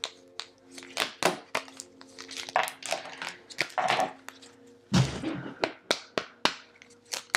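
Tarot cards being handled: a run of sharp clicks and snaps as cards are drawn from the deck and handled over the table, with a heavier knock about five seconds in.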